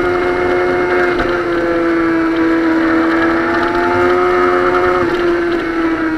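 Suzuki sport motorcycle's engine running hard at high revs, heard from on board as one steady, high engine note that dips slightly about five seconds in.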